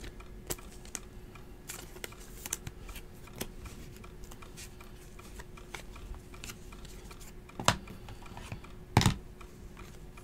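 Trading cards handled and flipped through by hand: scattered light clicks and slides of card edges, with two louder knocks near the end, over a faint steady hum.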